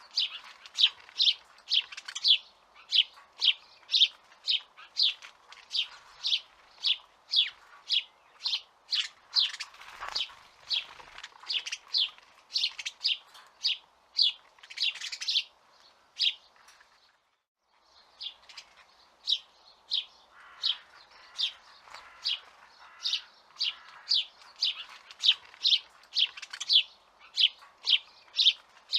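A small bird chirping over and over, about two short high chirps a second, broken once by a pause of about a second and a half about two-thirds of the way through.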